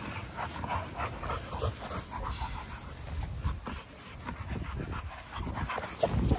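Dogs panting, with short irregular sniffing and scuffling noises as they move about together.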